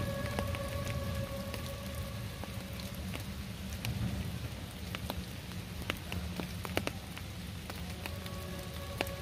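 Steady rain falling, with scattered drops ticking sharply on leaves and the ground. A faint steady hum fades out about three seconds in and returns near the end.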